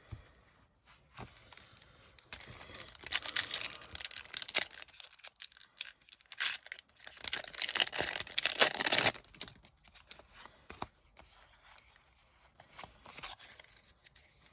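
Foil wrapper of a Pokémon TCG booster pack being torn open and crinkled, loudest in two stretches through the middle, followed by quieter light ticks of the cards being handled.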